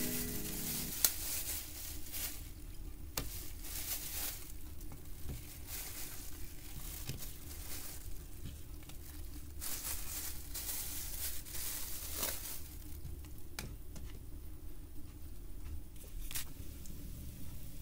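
Plastic bag rustling and crinkling in irregular bursts while patties are pulled out of it and laid one at a time into a frying pan, with soft squishy taps as they go down.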